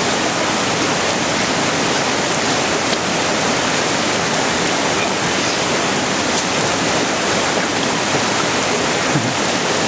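Mountain stream rushing steadily over rocks, a loud, unbroken wash of water.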